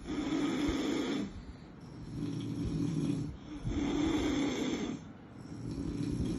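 Sleeping puppy snoring, about four snoring breaths that swell and fade in a slow, even rhythm, one every second and a half or so.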